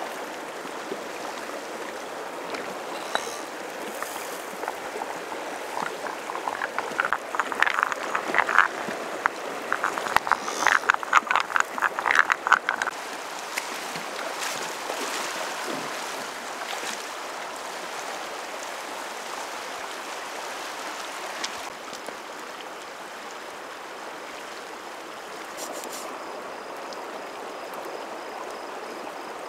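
A river stream running steadily, with a frog croaking in quick rattling trains of calls for several seconds in the middle.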